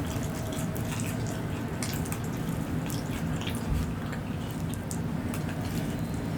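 Close-miked mukbang eating sounds: wet chewing with scattered small mouth clicks and smacks, over a steady low hum.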